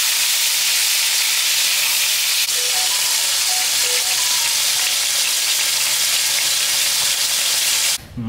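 Food frying in a hot pan: a steady, loud sizzle that cuts off suddenly near the end.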